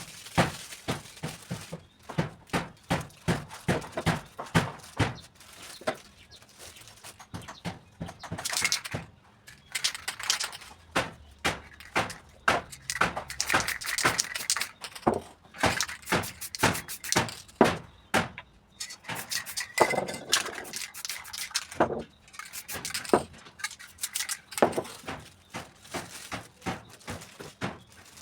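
Irregular knocks and clicks from handling tools and an aerosol spray-paint can, with several short bursts of spray hiss.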